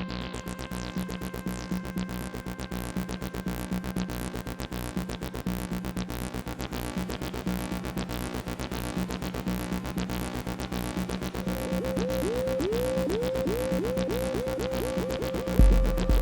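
Electronic jam on a Behringer RD8 drum machine with Behringer TD3 and Arturia Microfreak synths: a fast, steady drum-machine pattern over a repeating synth bassline. From about two-thirds of the way in, a short falling blip repeats faster and faster. Near the end a heavy kick drum comes in and the music gets louder.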